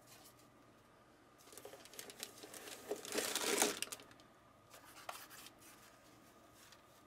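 Packaging wrap being crinkled and torn away by hand, in rustling bursts that start about a second and a half in and are loudest around three to four seconds. A few light clicks follow.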